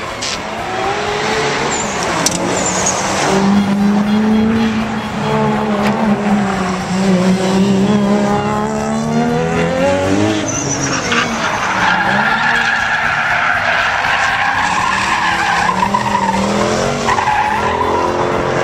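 A performance car's engine revving hard, its pitch climbing and falling, while the tyres squeal as the car slides on tarmac. In the second half a long, steady tyre squeal holds for about five seconds.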